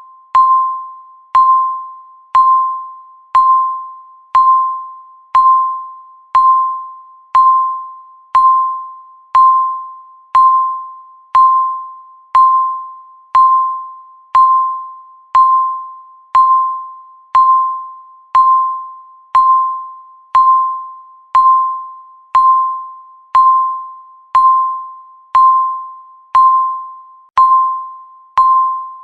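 Countdown timer beeping once a second: a single electronic beep of one high tone, each starting sharply and fading away before the next.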